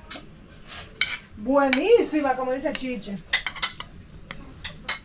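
A metal spoon clinking and scraping against a plate of food as it is eaten, heard as a run of sharp clicks. About a second and a half in, a brief voice-like sound rises and falls in pitch for about a second and a half, louder than the clinks.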